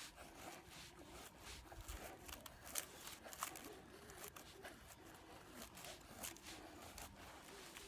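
Faint rustling with many small irregular clicks, like gear or fabric being handled.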